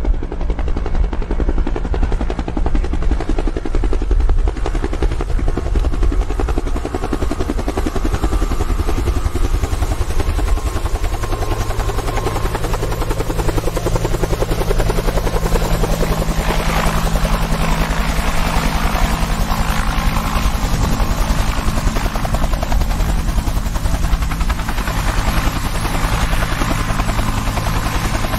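Changhe Z-10 attack helicopter in flight: a rapid, continuous rotor beat over a steady low engine drone. A brief swell of rushing noise comes about sixteen seconds in.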